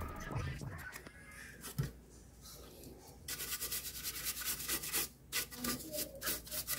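Hand screwdriver turning screws into the end panel of a metal inverter case: a quick run of short scraping, rasping strokes that starts about halfway in, after quieter handling noise and a single knock.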